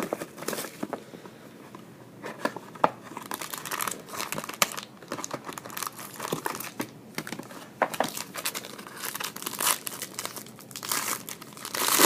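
Plastic trading-card pack wrapping crinkling and tearing as it is opened by hand, in irregular crackles and rustles that get louder near the end.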